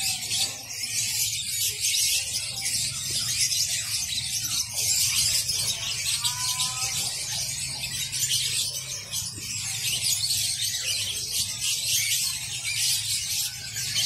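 Many caged songbirds singing and chirping at once, a dense high-pitched chorus of trills and chirps, with a low steady hum beneath.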